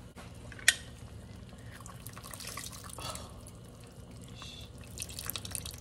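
Faint, irregular drips and small pops from a pan of melted butter and lemon juice, with one sharp click under a second in.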